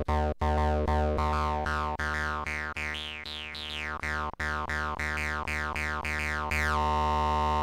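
The Akai Rhythm Wolf's analog bass synth voice playing a low note over and over, about three times a second, each note with a falling filter sweep. Near the end it holds one note steadily.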